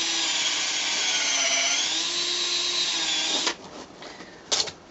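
Cordless drill running, boring a hole into a wooden board; the motor's whine dips in pitch under load in the middle and stops about three and a half seconds in. A short sharp click follows near the end.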